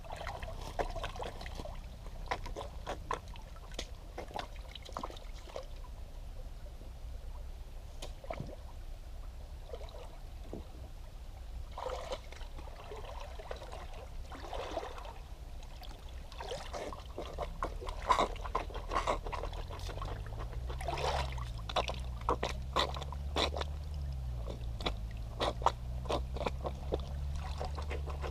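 Feet in DVS Enduro Heir skate shoes stepping and sloshing through shallow creek water, with irregular splashes over the trickle of the stream. A low hum that wavers in pitch comes in about two-thirds of the way through.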